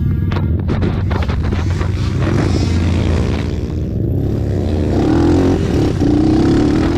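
Racing ATV engines revving, their pitch rising about two and a half seconds in and again from about five seconds on, over a loud rumbling background.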